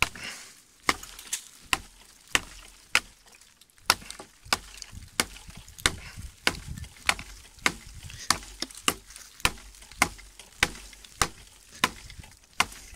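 TRC Apocalypse DBK edition chopping knife striking a dead log again and again, about two chops a second, each blow a sharp knock into the wood.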